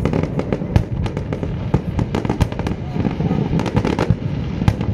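Fireworks going off: many bangs and crackles in quick succession with no break, over a low rumble.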